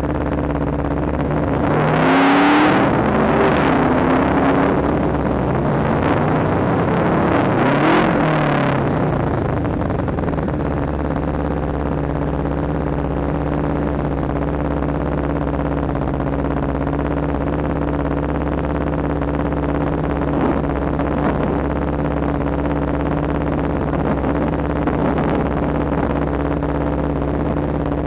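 Motorcycle engine idling steadily, revved twice by the throttle, about two seconds in and again about eight seconds in, the pitch rising and falling each time.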